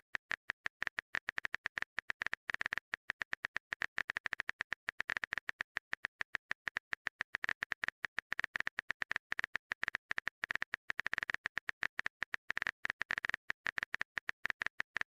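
Rapid, uneven clicking of a phone keyboard typing sound effect, many taps a second, as a text message is typed out.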